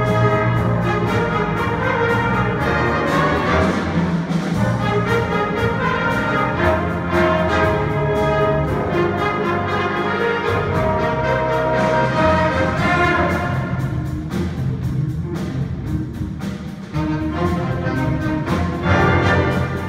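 Student jazz big band playing live: saxophones, trombones and trumpets in held chords over piano and a drum beat. The band thins out in the second half, then comes back in loud about seventeen seconds in.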